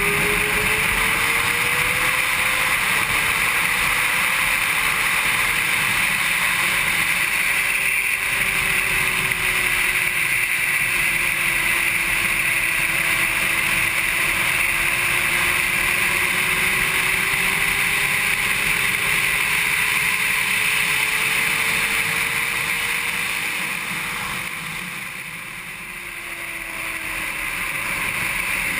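Honda CBR600RR inline-four engine at high revs on track, its pitch slowly rising and falling as the throttle opens and closes, under a heavy rush of wind noise. The sound dips briefly near the end, then builds again.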